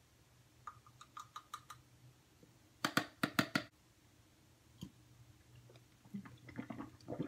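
Plastic supplement tub and plastic water bottle being handled: scattered light clicks, then a quick run of four or five sharp, loud crackles about three seconds in, and more crinkling clicks near the end.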